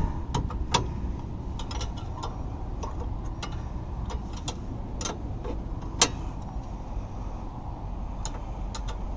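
Socket ratchet clicking in scattered, irregular ticks as a rear brake caliper bracket bolt is worked loose, with one sharper click about six seconds in, over a steady low background rumble.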